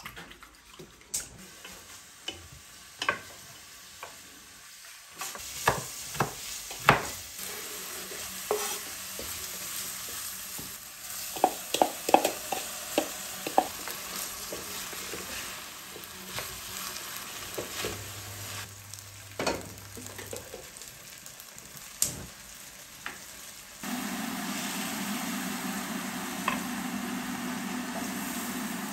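Food frying in a pan with a steady sizzle, stirred and scraped with a utensil in quick clicks and knocks. Near the end the sizzle gives way suddenly to a steady low hum.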